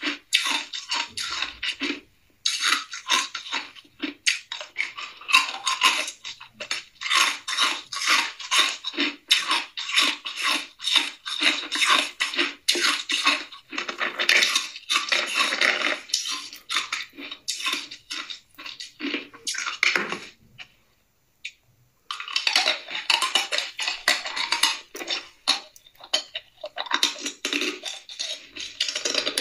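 Hard ice cubes being bitten and chewed: rapid, crisp crunching and cracking, with two short pauses, about two seconds in and about two-thirds of the way through.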